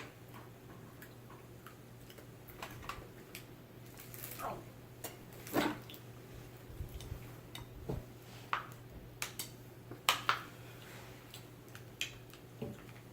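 Scattered faint clicks and crackles of a snack being eaten and its packet handled, over a steady low hum.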